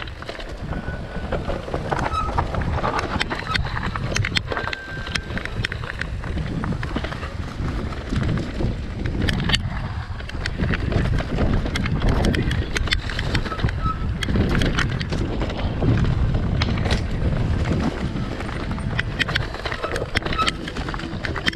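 Mountain bike rolling over a rough, stony trail: tyres grinding over loose rock with frequent sharp clicks and rattles from the bike, over a steady low rumble.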